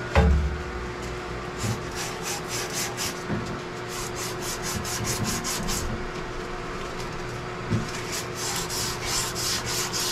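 A single low thump just after the start, followed by two runs of rhythmic scraping or rubbing strokes at about three to four a second.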